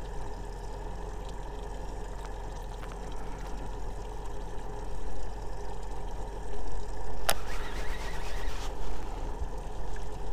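A steady faint hum under a noisy outdoor bed that grows louder and uneven from about five seconds in, with one sharp click about seven seconds in.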